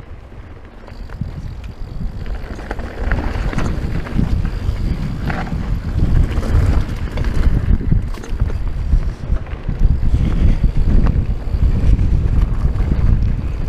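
Strong gusty wind buffeting the microphone as a mountain bike rides a trail, getting louder about two seconds in. Scattered clicks and rattles from the bike run through it.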